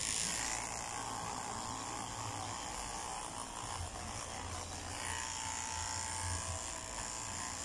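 Corded electric dog-grooming clipper running with a steady buzz as it shaves a dog's long coat, its tone shifting slightly about five seconds in.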